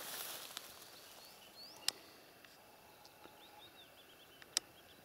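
Quiet forest ambience with a small bird's high chirping in the background and two sharp clicks about two and a half seconds apart. A short rustle comes at the very start.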